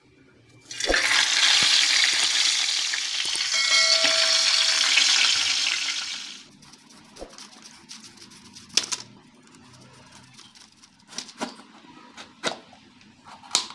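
Food sizzling loudly in hot oil in a pan, starting with a knock about a second in and stopping abruptly about six seconds in. Then a knife cutting and peeling a green papaya, with a few sharp clicks and knocks of the blade.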